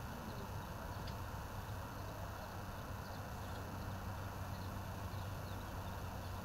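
Steady lakeside ambience: a low, even rumble with faint, short bird chirps scattered throughout.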